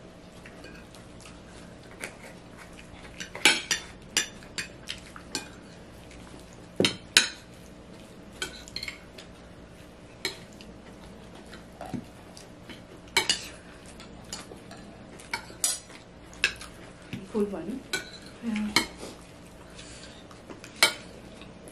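Metal spoons and forks clinking and scraping on ceramic plates as people eat. The sharp clinks are irregular, about every second or two, some in quick clusters.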